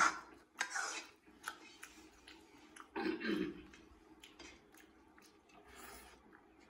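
Eating rice and mutton curry by hand: fingers squishing and mixing the food on the plate, with chewing and small mouth clicks. There is a short murmur from the eater about three seconds in.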